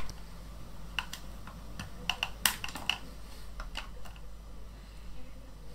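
Scattered light plastic clicks and taps as the retaining clips are pressed back into a Yongnuo YN-560 speedlite's plastic housing, with a quick cluster of them about two to three seconds in.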